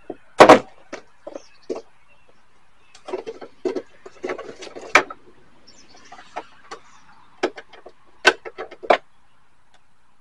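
Irregular sharp knocks, clicks and scrapes as a truck's side mirror is worked loose and pulled off the door, its foam gasket, glued to the door, tearing away. The loudest knock comes about half a second in, with more around the middle and near the end.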